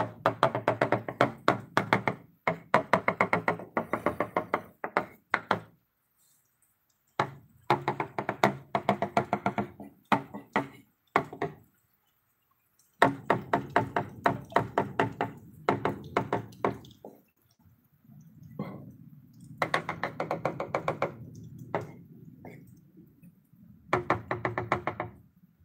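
Powder shaker can shaken hard in bursts, rapid knocks about five a second, as it dusts powder along a wooden bed frame; each burst lasts a few seconds with brief pauses between.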